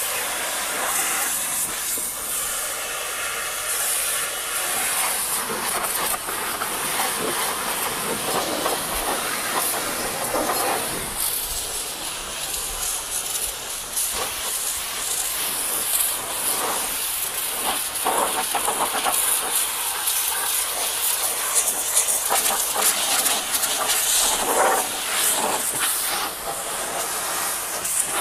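Water jet from a high-pressure car-washer lance hissing as it blasts a vehicle's tyre, steel wheel rim and wheel arch. The hiss swells and dips as the jet moves over the surfaces.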